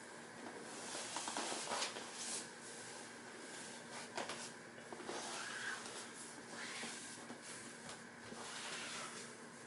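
Rustling and scuffing of a person shifting bare skin and hands across vinyl-covered folding gym mats, in irregular bursts with a couple of sharper knocks, over a faint steady hum.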